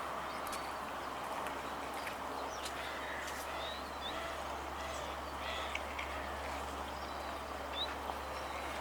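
Outdoor background noise, steady, with a few faint, short bird chirps scattered through it and some light clicks.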